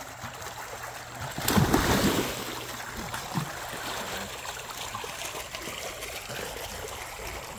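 A dog splashing into a swimming pool about one and a half seconds in, the loudest moment, followed by steady sloshing and trickling of the pool water.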